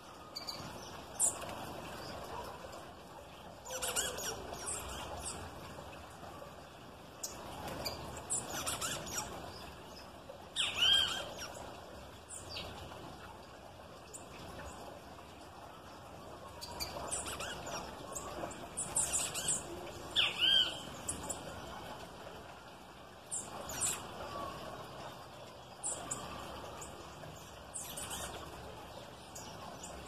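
Small birds chirping and calling in short, high notes scattered throughout, the loudest being a few calls that fall in pitch about eleven and twenty seconds in.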